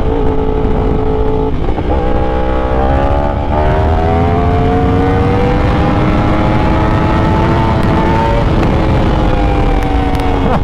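Yamaha YZF-R1's 998 cc crossplane inline-four running under way. Its note climbs in steps over the first few seconds, then rises steadily, drops about eight seconds in and falls away slowly, over a low rumble.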